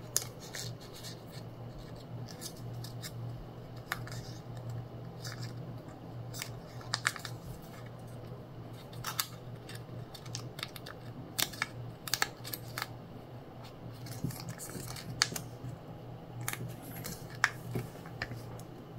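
A sheet of origami paper being handled and folded by hand, with scattered short crackles and rustles as a flap is tucked into a pocket and creased, over a low steady hum.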